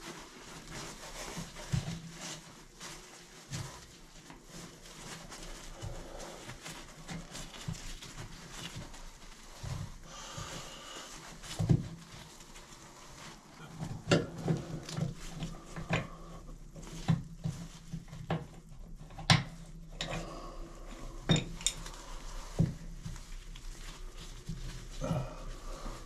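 Irregular metallic clinks and knocks of hand tools and small metal parts being handled against hard surfaces, coming thicker in the second half over a steady low hum.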